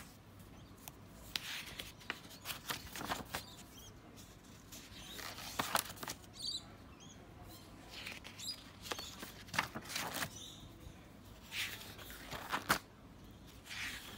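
Paper pages of a spiral-bound sketchbook being handled and turned by hand: soft, brief rustles and brushes of paper, coming every second or two.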